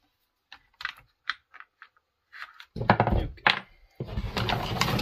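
Handling of a Poulan Pro 255 chainsaw on a workbench: a few small plastic clicks, then loud clattering and a sharp knock as the saw is moved, and about a second of rattling near the end.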